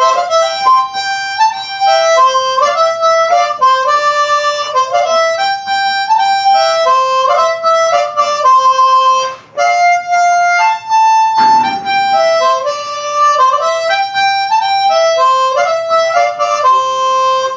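A harmonica played solo with the hands cupped around it, running through a quick melody of short notes. There is a short break a little past halfway, then a brief breathy rush before the tune goes on.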